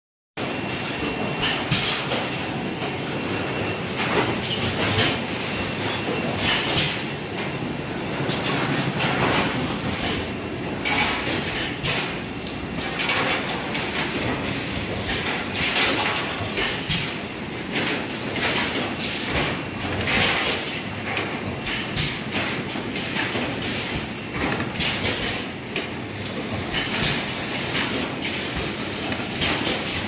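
Automatic PET bottle baler running: a steady mechanical clatter with frequent irregular sharp clacks and short hissing bursts.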